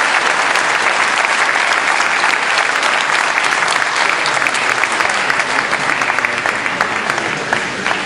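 Large audience applauding steadily, the clapping easing off slightly near the end.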